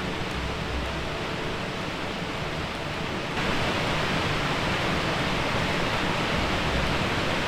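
Waterfall rushing: a steady, full roar of falling water that grows abruptly louder about three and a half seconds in.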